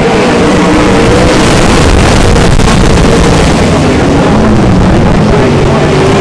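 A pack of winged sprint cars racing on a dirt oval, their V8 engines running loud and overlapping, the pitch wavering up and down as the cars pass close by.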